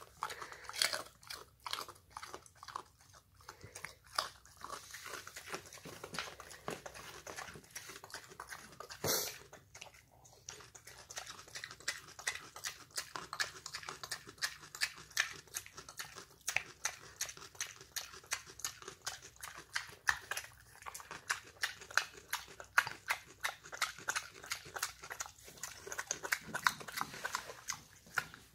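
A pet pig crunching and chewing a raw carrot, with quick, irregular crunches throughout. A brief, louder noise comes about nine seconds in.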